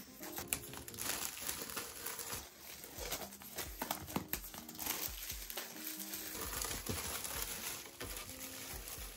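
Clear plastic shrink wrap crinkling and tearing as it is peeled off a laptop box by hand, in irregular bursts, over background music.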